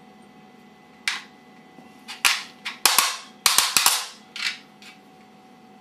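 Small metal parts, brass spacers and solenoid pieces, clinking and knocking against each other and the steel fixture tray as they are handled and set down. There is one sharp clink about a second in, then a quick run of about ten more between two and four and a half seconds.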